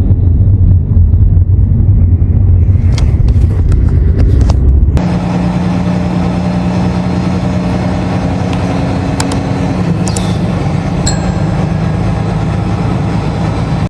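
Motor vehicle running: a heavy, deep rumble for about five seconds, then an abrupt switch to a steadier engine and road drone with a low hum and a few scattered clicks.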